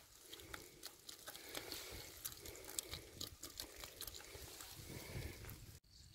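Rapid patter of small clicks and rustles from a mesh trap full of small live fish and shrimp being handled, the catch wriggling against the netting. It cuts off abruptly near the end.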